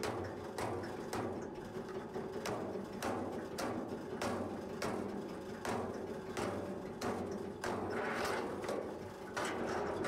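Powered log splitter running with a steady motor hum, with sharp wooden knocks repeating about every half second as firewood is split on its blade.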